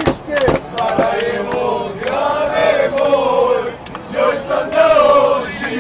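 A group of men chanting a football song in unison in a packed aircraft cabin, with a few sharp hand claps at the start.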